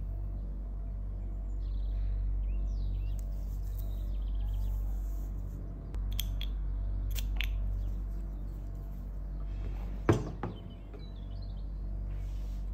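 Steady low hum with faint bird chirps. About ten seconds in comes a sharp knock with a lighter one just after, as the perfume bottle and its metal cap are set down on the wooden tabletop.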